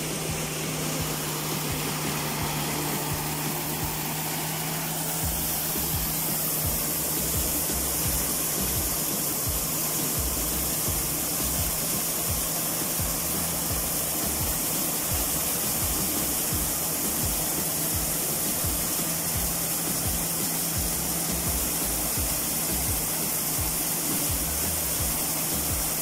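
Engine-driven maize sheller running steadily: a constant machine drone with a low hum, over the rushing noise of cobs being threshed and chaff blown out of the machine.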